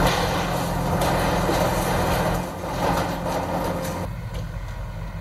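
JCB backhoe loader's diesel engine running under work, a steady low hum with some rattling noise over it. The sound drops a little after about four seconds.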